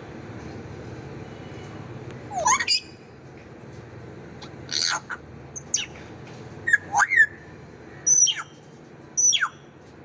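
African grey parrot giving a string of about six short, loud whistles and squawks, spaced roughly a second apart and starting a couple of seconds in. Most sweep steeply down in pitch, and one near the middle rises.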